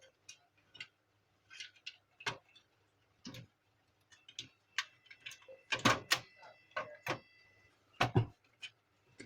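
Plastic printer parts being handled and fitted back together: scattered clicks and knocks, the loudest about six and eight seconds in.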